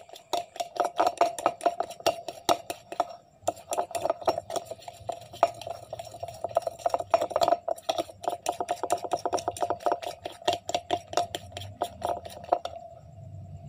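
A spoon clinking and scraping against a ceramic bowl in quick strokes, several a second, as egg, seasoning and breading mix are stirred into a batter. The stirring pauses briefly twice and stops shortly before the end.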